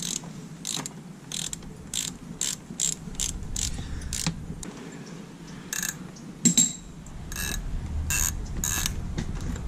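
Ratchet socket wrench with a 10 mm socket clicking as a bolt is run in and tightened: short bursts of pawl clicks about two to three a second, in two runs with a pause of about a second and a half in the middle.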